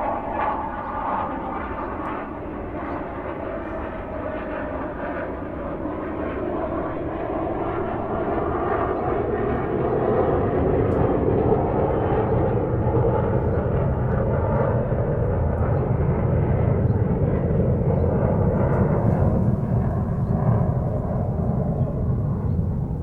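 Airplane engines and rushing air heard from inside the cabin, a steady roar that grows louder with a deeper rumble about a third of the way in.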